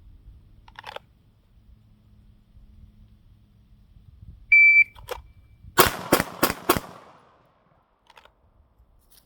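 A shot timer beeps once, then about a second later a pistol fires four shots in quick succession, roughly three a second, each with a short echo.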